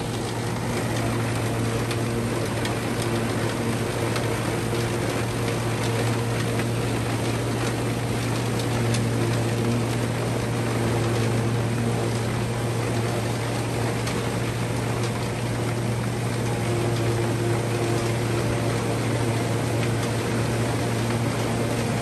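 Tractor-drawn New Holland FP230 forage harvester chopping standing corn, with its cutterhead and blower running and the tractor engine pulling under load. A constant, steady mechanical drone with a low hum underneath.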